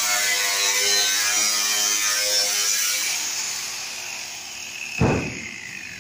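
Electric angle grinder running on sheet-metal ductwork, its whine fading away over the last three seconds. A single heavy thump about five seconds in.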